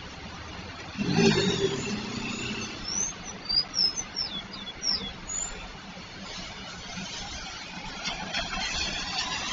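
Street traffic: a car engine accelerating past about a second in, a few high chirps a couple of seconds later, then another vehicle passing with tyre noise near the end.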